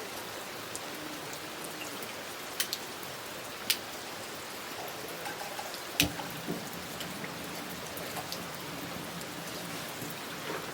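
Steady rain falling, with a few heavier drops striking sharply; the loudest comes about six seconds in.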